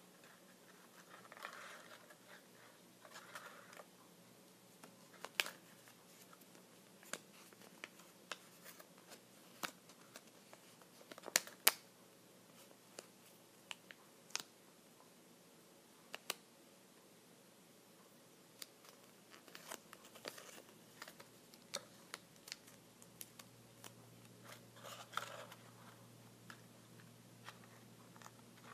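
Close-miked ASMR tapping: scattered sharp taps and clicks on a small object, with a couple of louder clicks about eleven seconds in and a few soft scratching or rustling passes in between.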